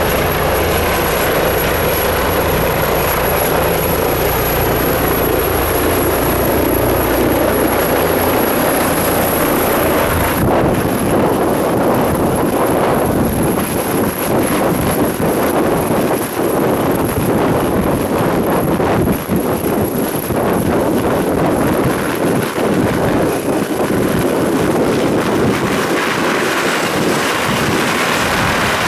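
Leonardo AW169 twin-turboshaft helicopter running close by: a steady loud rotor and engine noise with a thin high turbine whine that weakens about ten seconds in and fades out near the end.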